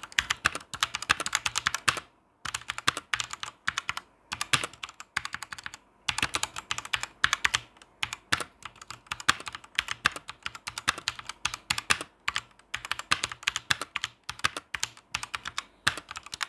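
Fast typing on a Machenike K520 mechanical keyboard with linear red switches: rapid runs of key clacks in bursts of a few seconds, broken by brief pauses, as a demonstration of how the keyboard sounds.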